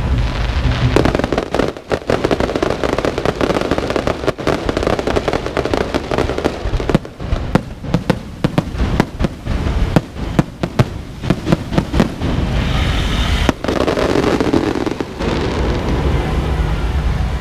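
Fireworks going off in rapid volleys of bangs and crackling, thinning to separate sharp reports about halfway through, then a dense spell of crackling near the end.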